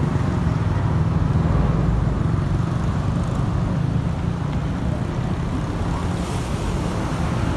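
Canal boat taxi's engine running steadily as a low rumble, the boat waiting at the pier.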